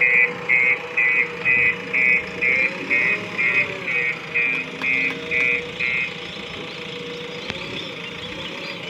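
A vehicle's reversing alarm beeping quickly and evenly, about two short beeps a second, stopping about six seconds in, over a diesel engine idling steadily. The engine runs on alone after the beeping stops.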